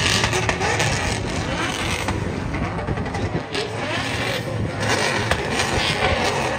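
Car engines revving, their pitch rising and falling over a dense, steady wash of noise.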